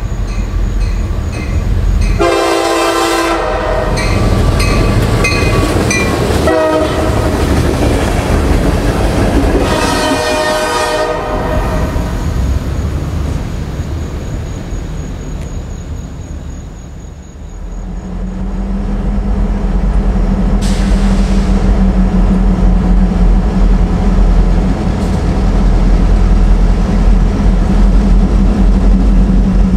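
Norfolk Southern EMD GP38-2 diesel locomotives passing, sounding their horn in three long blasts over a heavy low engine rumble. Then, after a break, a GP38-2's diesel engine running with a steady low drone.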